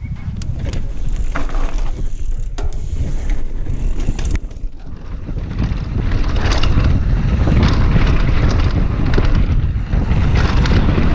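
Wind rushing over an action camera's microphone as a mountain bike rides fast down a dirt bike-park trail, with tyre noise on the dirt and short rattles and knocks as the bike hits bumps.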